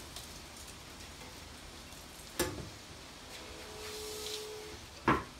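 Masking tape being pulled from its roll and pressed along the edge of a motorcycle rear fender, a soft hissing peel about three and a half seconds in. Two sharp knocks, the loudest sounds, come about two and a half seconds and five seconds in as the fender and tape roll are handled.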